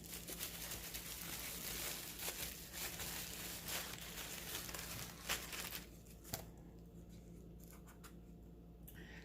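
Small jewelry packaging crinkled and torn open by hand, rustling with scattered clicks, then quieter for the last few seconds with a few faint clicks.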